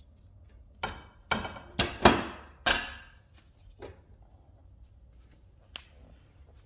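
Wood-burning fireplace being tended: five hard knocks and clunks in quick succession, then two lighter knocks.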